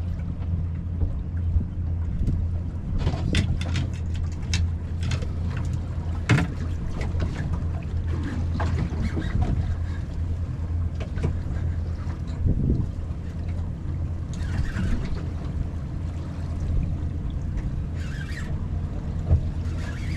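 Steady low wind rumble on the microphone aboard a small boat, with scattered sharp clicks and knocks throughout, the loudest about six seconds in and near the end.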